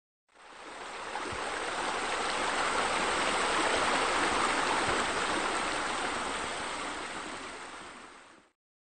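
Running water, a steady rushing hiss that fades in over the first couple of seconds and fades out near the end.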